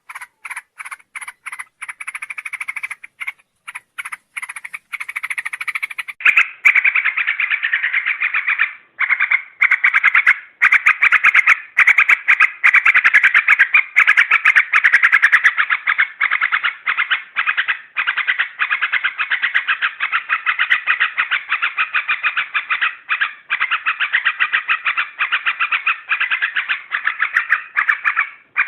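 Yellow-vented bulbul (trucuk) song played as a lure: rapid, chattering notes, spaced out at first, then a dense, louder, almost unbroken run from about six seconds in.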